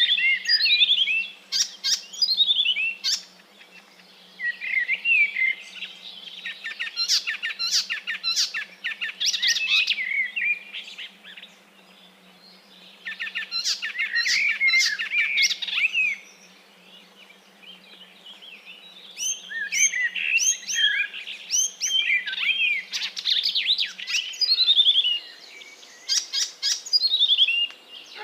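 Small pet parrots, a cockatiel and a green-cheeked conure, chirping in quick bouts of high, rising and falling notes, a few seconds at a time with short pauses between.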